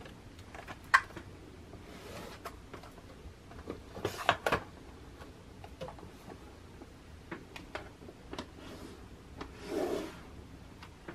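Makeup palettes and product boxes being set down and shifted in a vanity drawer: scattered light clicks and taps, one sharp click about a second in, a cluster of knocks in the middle and a short rustle near the end.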